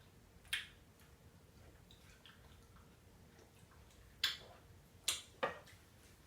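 Four short, sharp clicks over a faint background: one about half a second in, then three close together between about four and five and a half seconds in.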